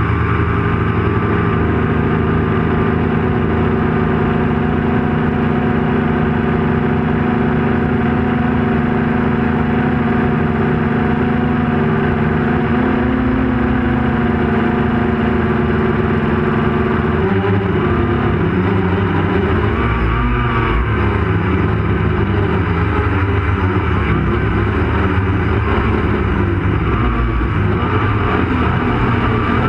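Turnigy HAL quadcopter's electric motors and propellers running in flight, a steady whine that starts wavering and shifting in pitch about 17 seconds in as the throttle changes.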